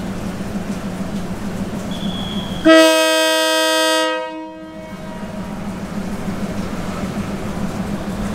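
Air horn of a Thai NKF diesel railcar sounding one loud blast of about a second and a half, a departure signal as the express pulls out of the platform. Under it runs the steady hum of the railcar's diesel engines.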